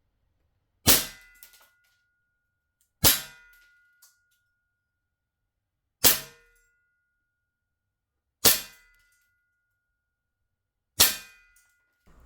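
Gas-powered airsoft pistol firing five single shots on red gas, each a sharp crack followed by a brief metallic ring, spaced about two to three seconds apart.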